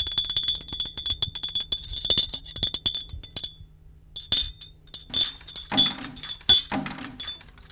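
Metal teaspoon clinking rapidly with a bright ringing tone, in two runs with a short break about halfway. Low pitched notes come in during the second half.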